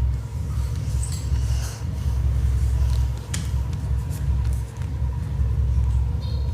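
Paper being folded and creased, with short, scattered crinkles and rustles. A loud, steady low rumble lies underneath.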